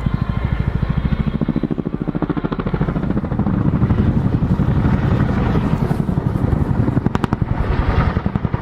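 Boeing Chinook HC2 tandem-rotor helicopter flying, its two rotors beating in a fast, even pulse over the engine noise.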